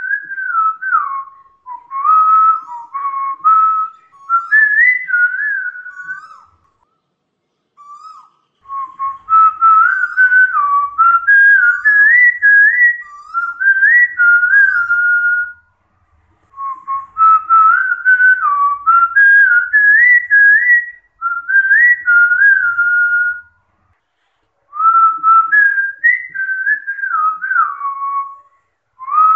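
A person whistling an old Khmer tune by mouth: one clear tone stepping up and down through the melody, in four phrases broken by short pauses.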